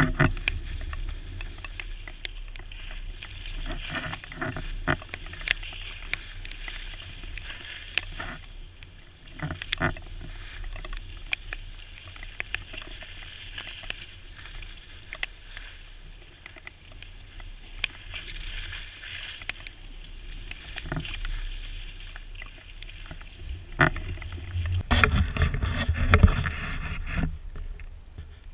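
A rider sliding downhill over snow: edges scraping and hissing across the snow with scattered clicks and knocks, over a steady wind rumble on the camera microphone. The rumble and knocking grow louder about 25 seconds in.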